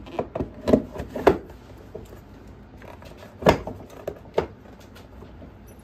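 Hard plastic wheel of a kids' ride-on electric jeep knocking and clunking as it is slid onto its axle and pressed home: a run of quick knocks in the first second and a half, then a louder clunk about halfway through and another a second later.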